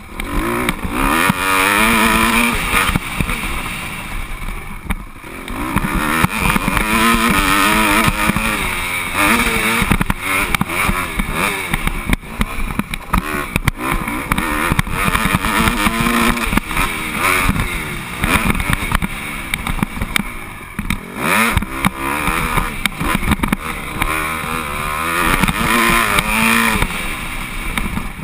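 Dirt bike engine being ridden hard, revving up and dropping back again and again as the throttle opens and closes through the gears, heard from the rider's helmet camera. The engine eases off briefly about five seconds in and again around twenty-one seconds.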